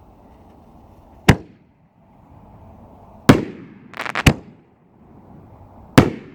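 Pyrostar Chroma 60-gram canister firework shells launching and breaking with sharp booms. One comes about a second in, another two seconds later, followed at once by a quick run of cracks and a bang, and a last boom near the end.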